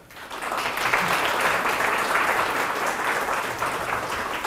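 Audience applauding: a dense clatter of many hands that swells up within the first second, holds, and begins to thin near the end.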